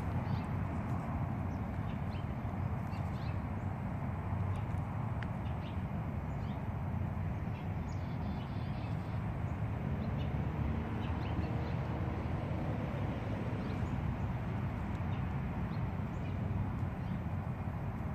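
Steady low outdoor rumble, with faint short high chirps or ticks scattered through it.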